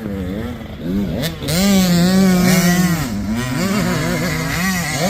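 Two-stroke 85cc motocross dirt bike engine revving hard, its pitch rising and falling again and again as the throttle is worked and the rider shifts through the gears.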